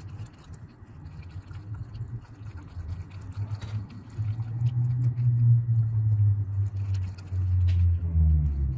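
Dog gnawing and chewing on a chew treat held in a hand: wet smacking and small crunching clicks. From about halfway in, a loud low rumble joins in and stays to the end.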